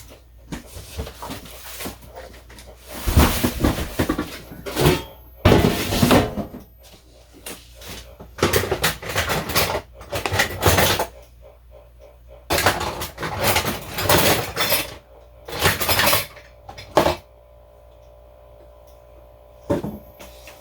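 Kitchen clatter: dishes, utensils and cupboard doors handled and knocked in irregular bursts, with a quieter pause near the end.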